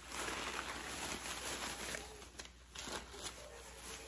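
Rustling and crinkling of a shopping bag and tissue wrapping as an item is dug out and unwrapped, with a short lull about halfway through.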